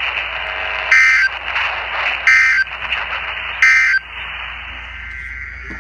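NOAA Weather Radio SAME end-of-message data bursts: three short bursts of warbling digital tones about 1.4 s apart, over radio static hiss. They mark the end of the warning message.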